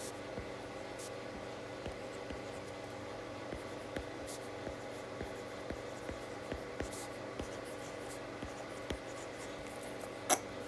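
Stylus tapping and scratching on a tablet's glass screen during handwriting: a run of light ticks and short strokes over a steady background hum, with one sharper click near the end.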